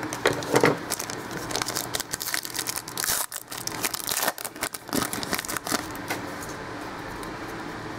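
Foil trading-card pack wrappers crinkling and tearing as the packs are opened by hand: a dense run of sharp crackles that stops about six seconds in.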